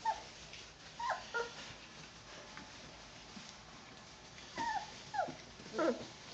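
Doberman puppies, about three weeks old, whimpering: short high cries that fall in pitch, a few near the start and three more close together near the end.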